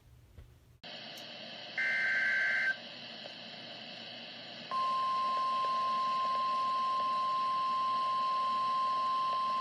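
NOAA Weather Radio broadcast with a hiss of static as the channel opens. About two seconds in comes a short two-tone data burst of the SAME alert header, and near five seconds in the steady single-pitch warning alarm tone begins. This is the alert that heralds a warning broadcast, here a flood warning.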